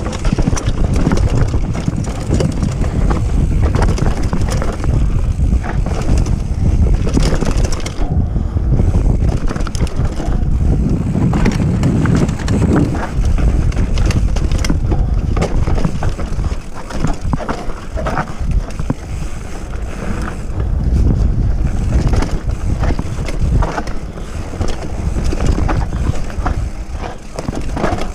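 Mountain bike descending a rough dirt-and-rock trail: a steady rush of wind on the microphone and the tyres rumbling over the ground, with frequent knocks and rattles from the bike over roots and rocks.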